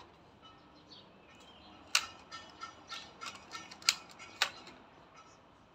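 Nerf blaster being handled: sharp plastic clicks and clacks from its mechanism. The loudest comes about two seconds in and two more near four seconds, with a run of lighter ticks between them.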